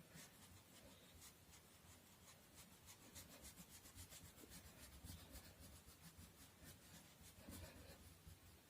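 Faint, rapid strokes of colour being rubbed onto paper: a quick scratchy run of short strokes, blending and shading colour in.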